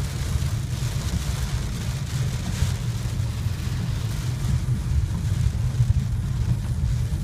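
Car driving in heavy rain, heard from inside the cabin: a steady low rumble with a hiss of rain and spray over it.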